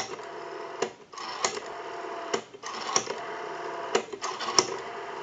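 Rotary dial of a Western Electric 500 desk telephone being wound to the finger stop and released digit after digit, with sharp clicks each time it is pulled round and let go as it spins back. The dial returns smoothly. A steady hum runs underneath.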